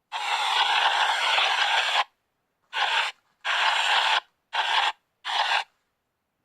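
Spirit box sweeping through radio stations, giving bursts of hissing static: one long burst of about two seconds, then four shorter ones, each cut off sharply into silence.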